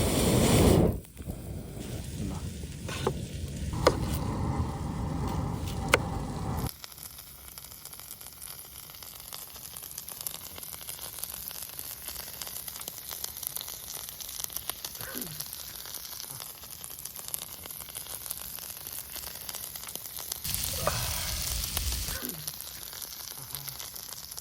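Chicken and potatoes sizzling over a campfire: a steady hiss full of fine crackles, with a couple of sharp pops in the first few seconds and a louder stretch near the end.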